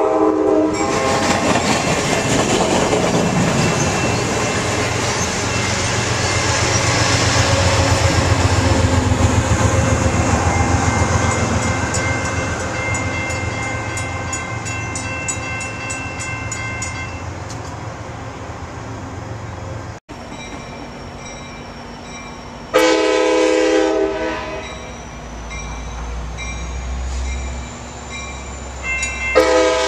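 Amtrak California bilevel passenger train rolling past, its wheel-on-rail noise swelling to a peak and fading away with rail clicks. After a break, an approaching Amtrak locomotive sounds a short horn blast, then another near the end, over a low engine rumble.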